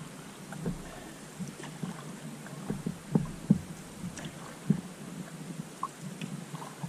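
Canoe being paddled: paddle strokes in the water with scattered short knocks and splashes, the loudest a little past three seconds in and again near five seconds.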